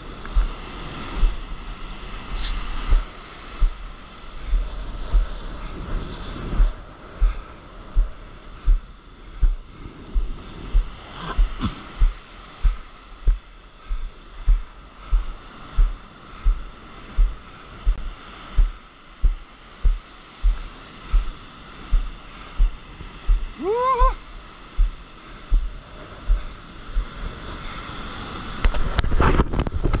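Surf washing and churning around a paddleboard close to the water, with a regular deep thump a little more than once a second. A brief rising call comes about 24 seconds in, and the water noise grows louder near the end.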